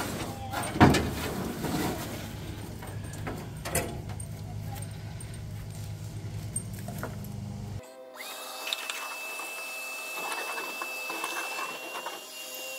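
Shop vacuum running, sucking dirt and debris off a truck cab floor, with grit clicking and rattling through the hose. About eight seconds in the low hum drops out abruptly and a steady high whine carries on.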